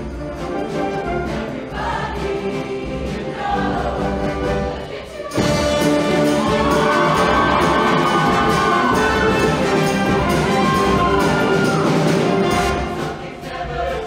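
Show choir with its live band performing an upbeat number with brass. The music jumps suddenly to full volume about five seconds in, with long held notes over the band.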